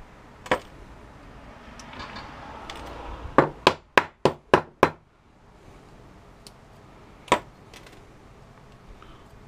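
Hammer blows knocking at a stripped electric stapler to break a part loose: a single knock, then a quick run of six blows at about four a second, then one more knock.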